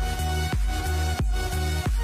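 Electronic background music with a deep bass and a steady beat.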